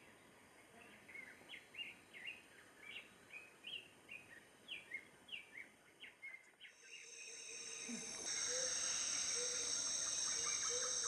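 Rainforest ambience. For the first six seconds a bird gives short falling chirps about twice a second. Then, about seven to eight seconds in, a loud steady high insect drone swells up, with a low note repeating about twice a second beneath it.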